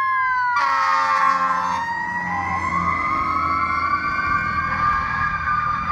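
Fire engine siren wailing as the truck passes, two siren tones gliding down and back up against each other. A loud air horn blast lasting about a second sounds over the siren about half a second in.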